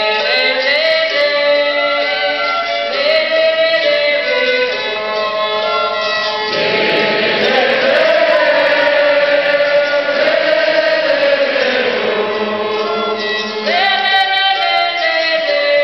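Violin playing with a group of voices singing a song together. The sound grows fuller and louder through the middle.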